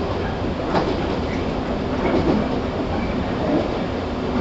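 Interior running sound of a JR 115 series 1000-subseries electric train, recorded in motor car KuMoHa 115-1005: wheel-on-rail rumble under a steady hum, with the wheels clicking over a rail joint about a second in.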